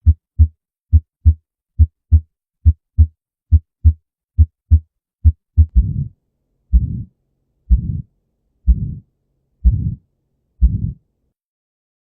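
Recorded heart sounds. For about the first six seconds there are crisp paired lub-dub beats in a steady rhythm. Then come longer whooshing beats, about one a second, typical of a heart murmur, which stop about a second before the end.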